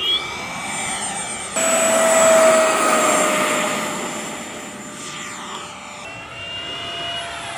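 Freewing Yak-130's 12-blade 70mm electric ducted fan running at power, with a steady high whine and a jet-like whistle from add-on whistles fitted in the airframe. The pitch sweeps as the jet passes, and the sound changes abruptly twice.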